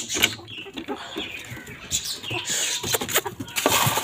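Metal latch and wire-mesh coop door clicking and rattling as it is opened, then dry grain rattling as it is poured into the chickens' feeder, heaviest near the end.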